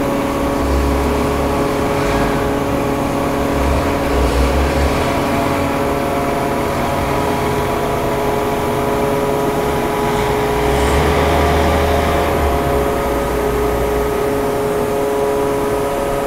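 Forklift engine running, revving up in short spells as it lifts and carries a heavy dished tank head, over a steady machine hum with several held tones.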